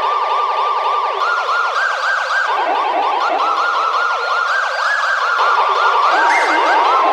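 Emergency alert alarm made of several sirens layered together, each sweeping quickly up and down in pitch about three times a second, so that the sweeps overlap. The pitch of the layers steps up or down every second or two.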